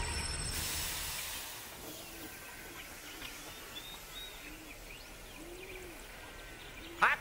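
Steam locomotive venting a hiss of steam that fades out after a couple of seconds, leaving faint outdoor ambience with a few soft bird chirps. A loud yelled voice cuts in just before the end.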